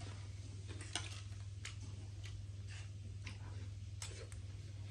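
Close-up eating sounds: soft chewing with sharp mouth clicks, several spaced irregularly about half a second to a second apart, over a steady low hum.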